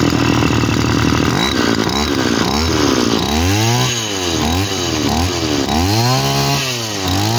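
Komatsu G3K 34cc two-stroke brush cutter engine, fitted with a two-needle carburettor, running at speed, then revved up and down repeatedly, about once a second.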